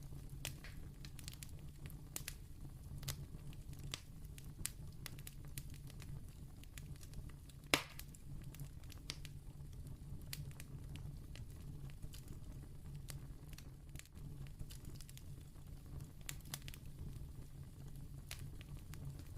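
Candle crackling: irregular small pops and clicks, with one louder pop about eight seconds in, over a low steady hum.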